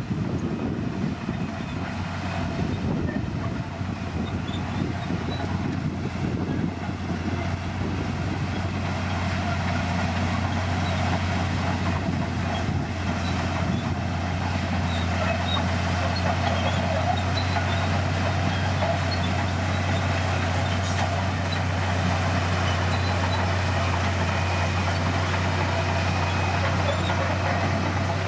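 Bulldozer's diesel engine running steadily under load, a deep continuous hum, with faint high squeaks and ticks scattered over it.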